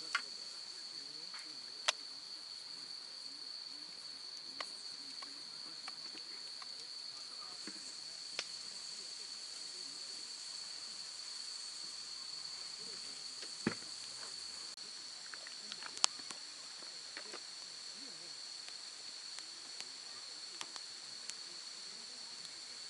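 Autumn insects, crickets, trilling steadily on one high note, with more voices joining higher up about two-thirds of the way through. A dozen irregular sharp pops cut across it, typical of burning wood crackling in a campfire.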